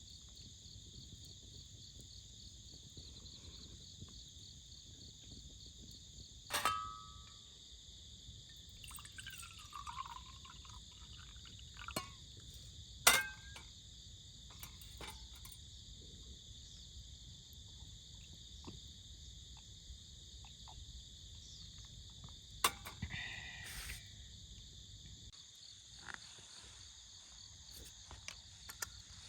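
Steady chorus of crickets and other night insects, a continuous high trill, broken now and then by a few short sharp clicks and knocks.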